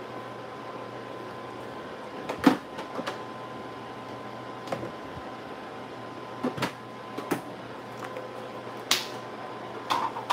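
A scattering of short knocks and clicks from things being handled and set down, the loudest about two and a half seconds in, over a steady low hum.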